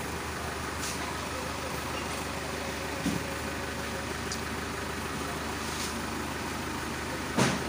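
Flatbed tow truck's engine idling with a steady low hum. A dull knock comes about three seconds in and a louder, sharp knock near the end.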